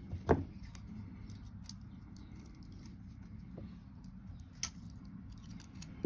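Metal hand tools clinking and knocking on a wooden workbench as a pair of pliers is picked up: one sharp knock about a third of a second in, a smaller one past four and a half seconds, and light ticks between, over a low steady hum.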